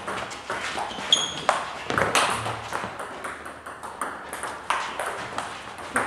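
Table tennis ball clicking irregularly off the table top and the rubber-faced bats during a rally.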